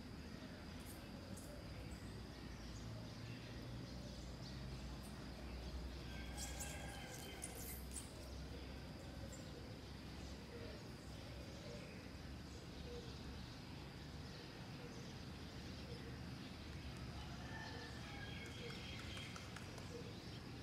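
Faint outdoor background noise with a thin, high, steady hum. Faint chirping calls come in about six seconds in and again near the end.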